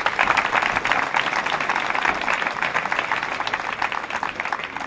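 Audience applauding, many hands clapping in a dense steady patter that thins out and fades near the end.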